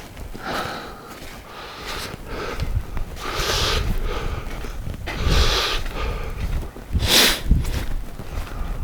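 A tired man breathing hard while hiking, with several loud sniffing, snorting breaths close to the microphone and soft low thuds of footsteps on a muddy trail.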